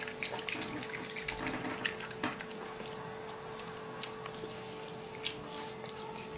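Raccoon chewing grapes: quick wet smacks and clicks of its mouth, over a steady hum.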